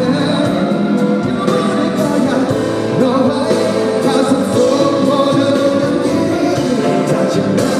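Live concert music: a male singer sings a song over band accompaniment.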